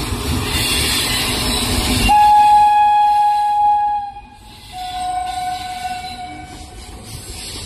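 Locomotive horn of the Dadar–Ballia Superfast Express sounding two long, steady, shrill notes. The first lasts about two seconds. After a brief break comes a second, slightly lower note of about the same length. The rumble of the running train is heard before the horn.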